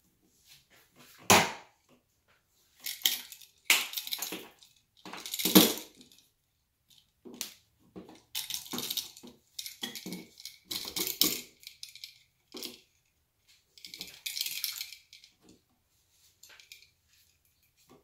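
Handling noises of wiring a light switch: a sharp snap about a second in as the wire stripper works the wire, then irregular clicks, scrapes and crackles as stiff solid-core wires are bent and the switch is handled.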